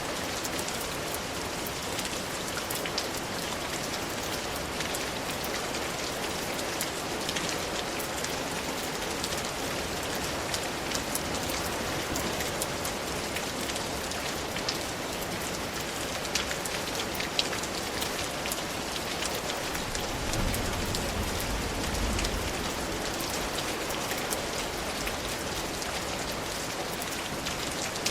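Steady rain falling, an even hiss dotted with many sharp ticks of single drops striking a surface. A low rumble rises under it about twenty seconds in and fades a few seconds later.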